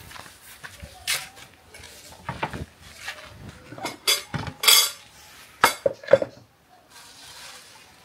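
Kitchenware being handled: a series of separate knocks and clinks of pots, bowls and utensils, loudest and busiest about four to six seconds in.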